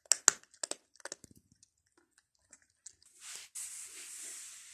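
A cat biting and chewing on the string of a wand toy: a quick run of small crunching clicks, then a steady rustling hiss from about three seconds in.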